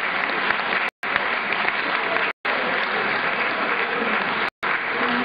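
Audience applauding steadily, a dense patter of many hands clapping. The sound cuts out completely for a moment three times: about a second in, midway and near the end.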